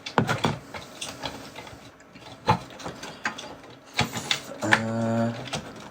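Plastic and metal parts of a cassette deck clicking, knocking and rattling as they are pried and pulled apart by hand, in several separate clicks. Near the end a short low hum from a person's voice.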